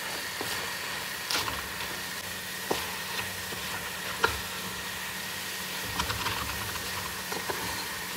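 Beef pieces with chopped onion, green chilli and coriander sizzling in a metal pan as the last of the cooking water dries off, stirred with a slotted spatula. Sharp taps and scrapes of the spatula on the pan come every second or two; the loudest is about four seconds in.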